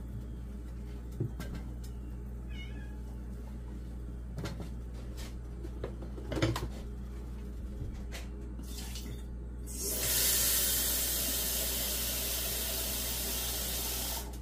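Water pouring steadily into a stockpot for about four seconds near the end, stopping abruptly. Before it come a few light knocks, over a steady low hum.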